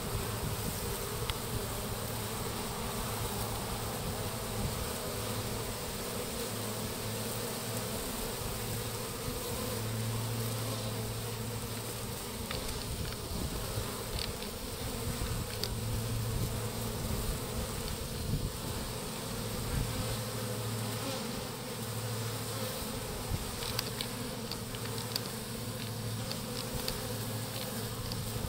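Honeybee swarm humming steadily as the bees crowd and fly around the hive's entrance hole, with a few short ticks near the end.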